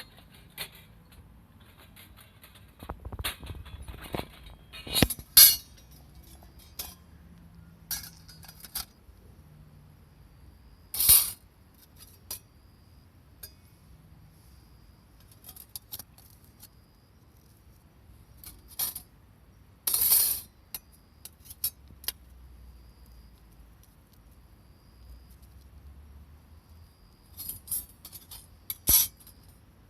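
Light metal clinking and clanking at irregular intervals, with a few louder clanks, from the sheet-metal parts of a take-apart wood stove being handled.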